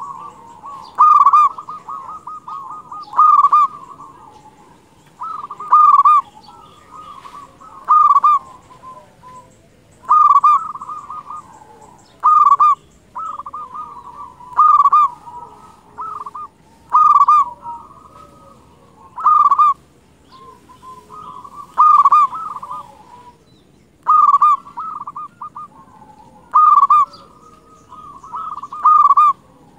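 Local zebra dove (perkutut) cooing in full song: a loud, clipped cooing phrase repeated about every two seconds, with softer rolling coos in between.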